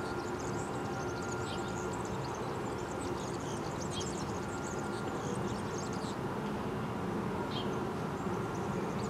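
Vossloh DE18 diesel-electric shunting locomotive idling with a steady hum. Short bird chirps come and go over it.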